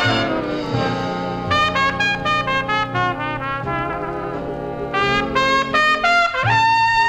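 1940s big band playing a ballad, led by a solo trumpet. After a held chord the trumpet plays two quick runs of notes, then slides up about six seconds in to a long held note with vibrato.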